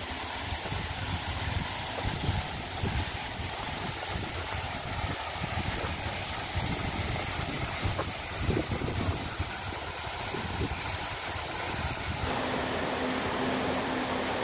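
Thin waterfall spilling down a rock cliff into a stream: a steady rush of water, with wind rumbling on the microphone now and then. About twelve seconds in, the sound changes to a smoother, brighter hiss with a steady low hum.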